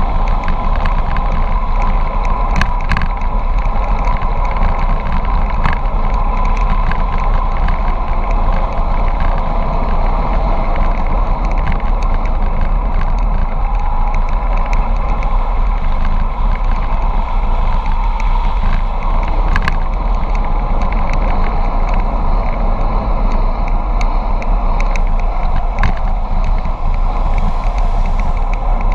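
Steady rushing wind on the microphone of a bicycle-mounted camera during a fast downhill ride, mixed with tyre noise on tarmac. A few sharp clicks or rattles from bumps cut through now and then.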